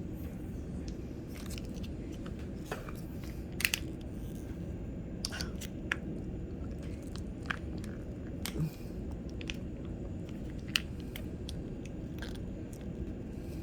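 Light, irregular clicks and taps of a spoon against a small container while a thick sauce is stirred, over a steady low hum.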